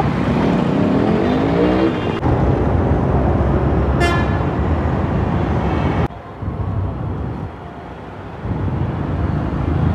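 Street traffic: a steady rumble of vehicle engines, with one engine's pitch sweeping up and down in the first two seconds. A short horn toot comes about four seconds in. The noise drops suddenly to a quieter stretch about six seconds in and builds again near the end.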